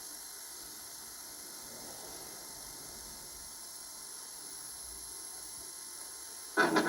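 Steady hiss with a thin, high, constant whine: the background noise of an old recording. Near the end, loud guitar music cuts in abruptly.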